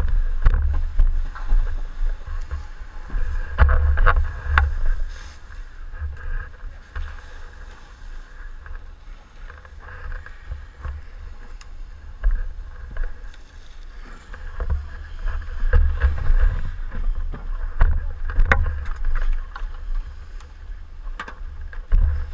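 Low, uneven rumbling and buffeting on a helmet-mounted camera's microphone as a firefighter moves, over a steady hiss, with scattered knocks and clicks. The rumble swells loudest about four seconds in and again around sixteen and eighteen seconds.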